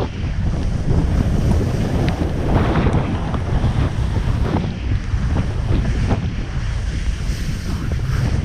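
Wind buffeting the microphone of a helmet camera during a downhill run, mixed with the scraping of the rider sliding over slushy, icy snow.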